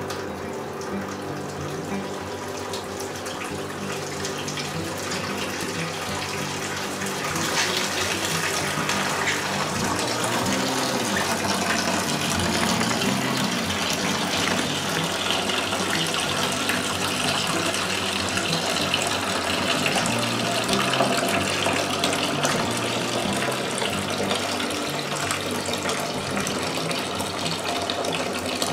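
Liquid corn mash (wort) running from the spigot of a cooler mash tun and splashing into a plastic fermentation bucket as it is sparged over: a steady pouring rush that grows louder about 7 to 8 seconds in.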